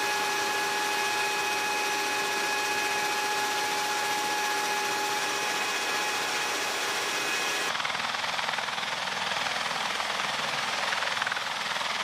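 Loud steady roar inside a military rotorcraft's troop cabin, with a steady high whine of several tones over it. About eight seconds in, it cuts to a duller, plainer rotorcraft roar without the whine.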